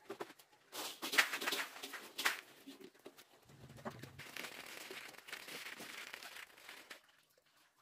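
A woven plastic sack shaken out and spread on the ground, rustling and crinkling in loud bursts over the first few seconds. Then ducks pecking grain off the sack, a steady soft rustle that stops suddenly near the end.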